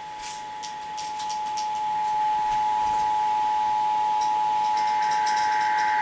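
Emergency Alert System attention signal: the steady two-tone alert (853 and 960 Hz sounded together), growing louder over the first two seconds. Near the end, the warbling data-burst tones of another station's alert header overlap it.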